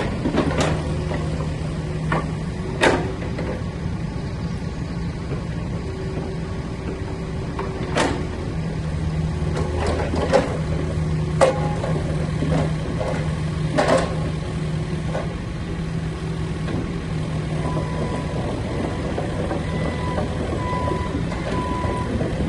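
Cat 308E2 CR excavator's diesel engine running with a steady low hum, with a handful of sharp knocks spread through it. A faint, broken high-pitched tone comes in near the end.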